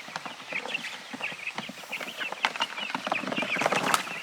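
A flock of young meat chickens cheeping with many short, high calls as they are dumped into a chicken tractor, with a few knocks and scuffles, the loudest about two and a half and nearly four seconds in.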